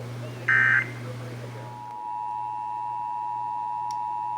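The last of three short, warbling Emergency Alert System end-of-message data bursts sounds about half a second in. Then the EAS two-tone attention signal begins at about a second and a half and holds as a steady, even tone.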